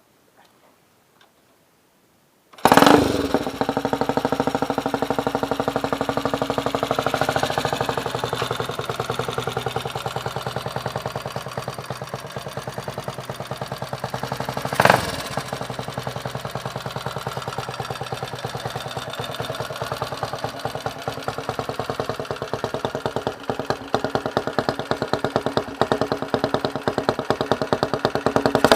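A CG-type single-cylinder four-stroke motorcycle engine starts about two and a half seconds in, then idles loudly through its muffler with distinct, rapid exhaust pulses. The revs rise slightly once, and there is a single sharp crack about halfway through.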